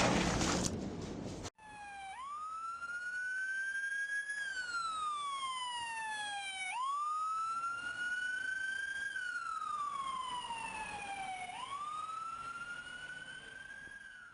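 A loud rushing noise dies away and cuts off sharply about a second and a half in. Then a siren sounds a slow wail, rising and falling in pitch about every four to five seconds, and fades toward the end.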